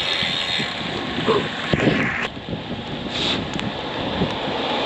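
Wind buffeting the action camera's microphone on a road bike riding through rain, mixed with the hiss of tyres on wet asphalt. It is a steady rush with a louder swell about two seconds in.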